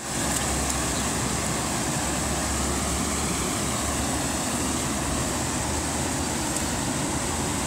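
Steady rush of a shallow river pouring over rocks in small rapids.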